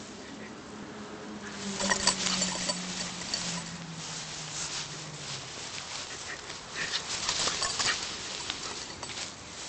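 Grass rustling and soft footsteps as a puppy hops through the lawn and the person filming walks after it, in irregular swishes that swell about two seconds in and again near eight seconds. A low hum steps down in pitch under the first half and fades out.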